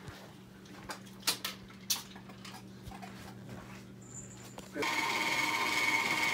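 Light kitchen clatter of small clicks and knocks, then from about five seconds in a KitchenAid stand mixer runs with a steady whine, beating cookie dough.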